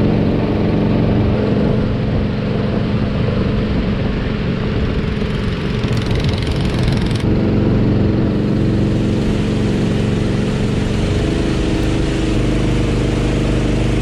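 Engine of a wooden passenger boat running steadily at cruising speed under a hiss of rain and water.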